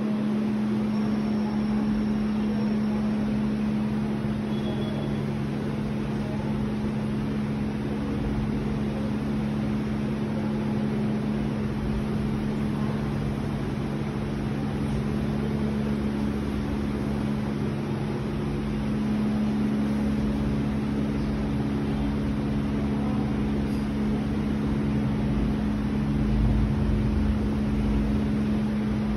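Steady machine hum with a constant low drone and an even hiss over it.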